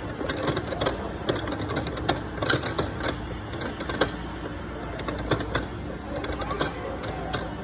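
Irregular sharp clicks and taps, several a second and unevenly spaced, over a steady background hubbub.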